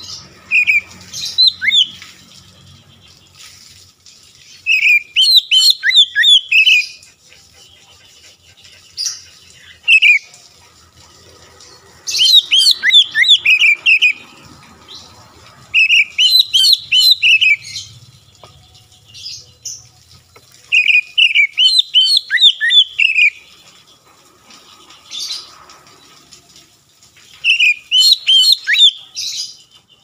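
Oriental magpie-robin (kacer) singing a loud, full song of rapid, varied whistled notes. The song comes in phrases of one to two seconds, about eight of them, with short pauses between.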